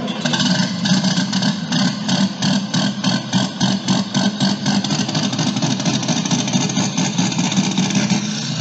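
An engine running steadily, with a rapid rhythmic ticking of about four strokes a second over the first several seconds that then fades into the steady running.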